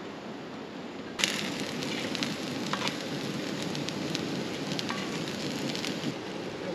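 Food sizzling and crackling in a hot frying pan. It starts suddenly about a second in and drops away shortly before the end, over a steady background hiss.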